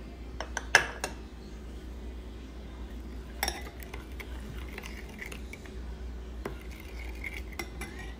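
Metal spoon stirring a sauce in a ceramic bowl, clinking against the bowl at irregular intervals, with a sharp clink about a second in and another cluster of clinks a few seconds later.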